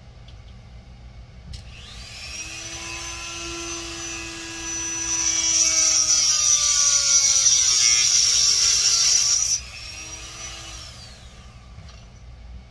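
Handheld rotary tool clicking on and spinning up into a high whine. About five seconds in it turns much louder and harsher as the bit grinds into a coral colony for several seconds, then cuts off suddenly and the tool winds down to a stop.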